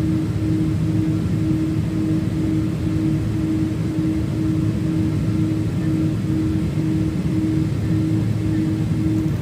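Airliner's jet engines running at taxi power, heard inside the passenger cabin as a steady low drone, with a low hum that pulses on and off evenly throughout.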